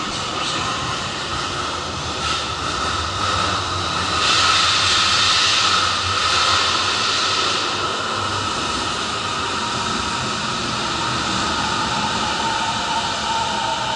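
Kobe Municipal Subway train pulling into an underground platform: a steady rushing of wheels on rail with hiss, loudest a little after the first third, and near the end a motor whine falling in pitch as the train slows.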